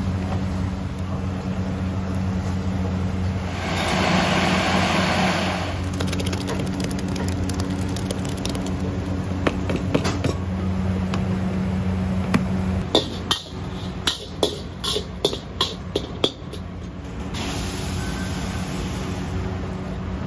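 Electric food processor motor running steadily as it grinds shallots into paste, with a louder whirring surge about four seconds in. The motor stops about two-thirds of the way through, and a quick run of sharp knocks and clinks follows as the paste is scooped out.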